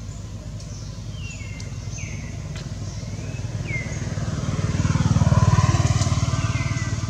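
A passing motor vehicle's engine hums, growing louder to a peak about five and a half seconds in and then fading. Short falling chirps from a bird come several times over it.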